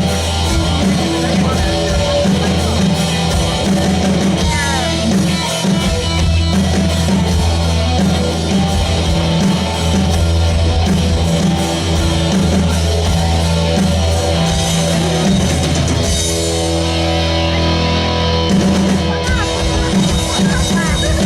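Rock band playing, with guitar, bass and drum kit.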